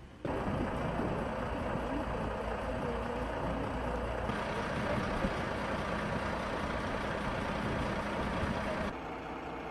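Heavy lorry engine running steadily, a loud rumble with outdoor noise. It comes in suddenly just after the start, changes abruptly about four seconds in, and drops in level near the end.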